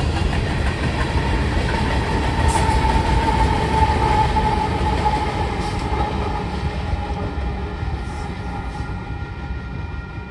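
Freight train rolling past, its cars rumbling over the rails. Through the middle there is a steady high tone that falls slightly in pitch, and the rumble fades near the end.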